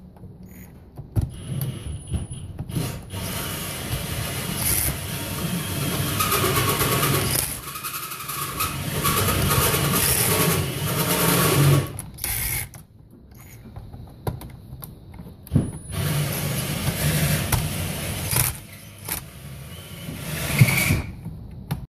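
Cordless drill/driver running in two long bursts with a short pause between, backing out the terminal screws on breakers in an old electrical panel.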